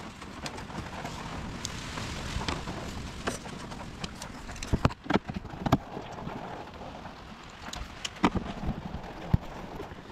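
Rain falling on a shed roof, with scattered sharp plastic clicks and knocks as the car's front grille tabs are pushed back into place, several close together about five seconds in.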